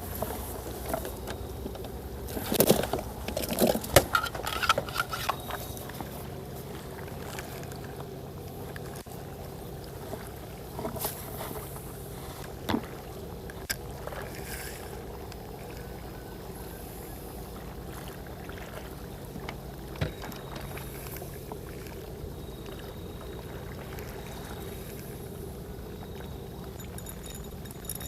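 Steady low hum of a boat engine running over the water. About three seconds in there is a short burst of clattering knocks, and a few single clicks follow later.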